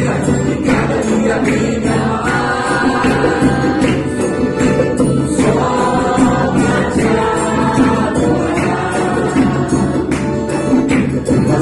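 Gospel worship music: voices singing together over instruments, with percussion striking across the music.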